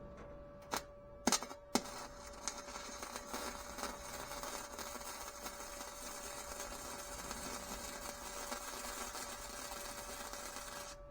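A few sharp clicks, then welding crackling steadily for about nine seconds as an arc is held on sheet metal, stopping just before the end.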